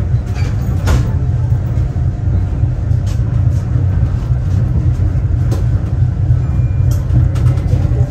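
Tram running along its track: a steady low rumble with a few short, sharp clicks scattered through it.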